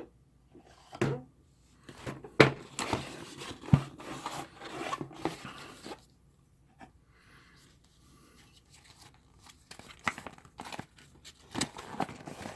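A cardboard box being cut open and unpacked: packing tape tearing and cardboard and packaging rustling, with several sharp knocks. There is a quiet pause in the middle.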